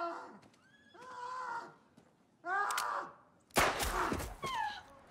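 A single loud gunshot about three and a half seconds in, with a long echoing tail, fired into the fallen sheriff. Short high cries come before it and again after it.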